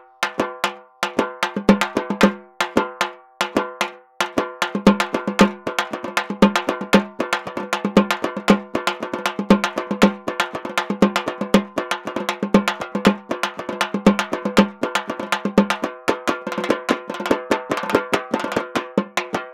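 Percussion music track: fast, steady drumming on a tuned drum that rings at the same pitch with every stroke. The strokes are sparse at first, then settle into a dense, even pattern from about four seconds in.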